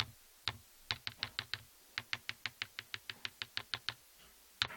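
Stirring stick tapped quickly and repeatedly against a container, about six sharp taps a second in two runs, as blue paint is knocked off it into the slime mix.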